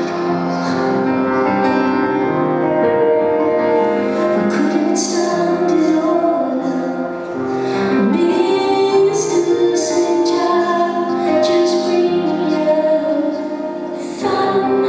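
A woman singing live, accompanying herself on solo piano, with long held vocal notes over sustained piano chords.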